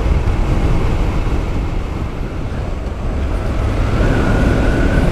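Honda NC 750X parallel-twin engine running and wind rushing over the rider's helmet microphone while the motorcycle slows from about 70 km/h. A faint steady high tone comes in near the end.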